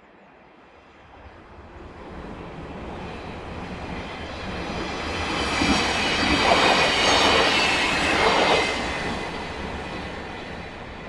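Commuter train passing by: the rumble builds steadily, is loudest about six to nine seconds in, then fades as it moves away. At its loudest a thin, high, steady whine rides over the rumble.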